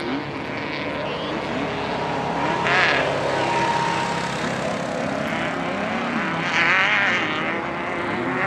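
Off-road race vehicles running on the course, their engines revving up and down, with a louder swell about three seconds in and another around seven seconds.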